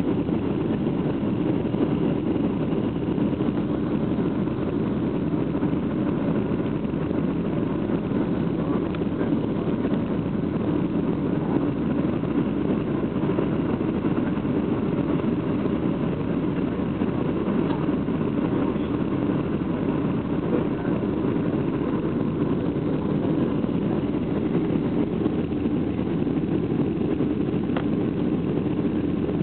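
Steady roar of a jet airliner's engines and rushing air as heard inside the passenger cabin during the descent to landing.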